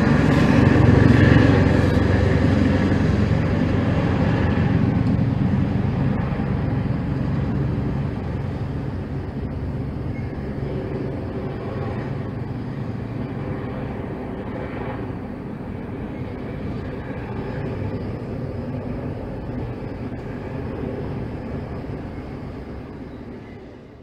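Helicopter flying overhead: a steady drone of rotor and engine that slowly grows fainter.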